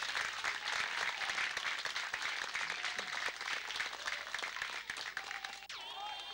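A crowd clapping their hands, a dense, continuous patter of many claps. About six seconds in the clapping gives way to quieter voices.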